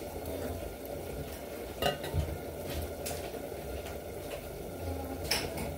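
Two light clinks of steel dishes, about two seconds and five seconds in, over a steady low hiss and hum.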